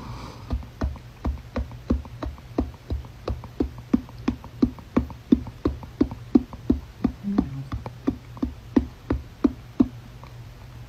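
A woman making a rapid series of short popping sounds with her mouth, tongue and cheeks, in an even rhythm of about three pops a second.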